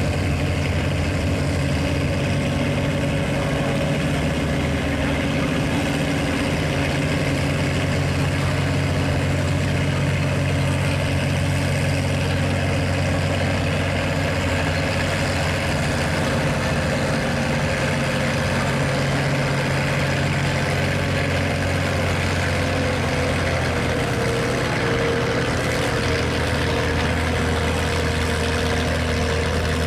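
Farm tractor engine running hard and steadily under load as it pulls a weight sled down the track. Its pitch dips slightly about three-quarters of the way through.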